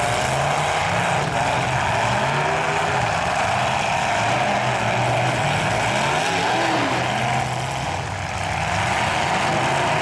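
Several demolition-derby pickup truck engines revving together, their pitches rising and falling over a steady rumble as the trucks push and ram each other. The sound eases briefly about eight seconds in.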